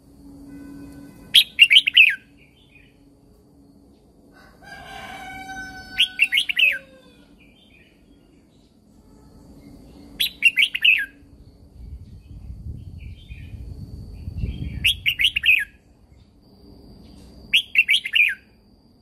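Red-whiskered bulbul singing: five short, bright warbled phrases, spaced a few seconds apart.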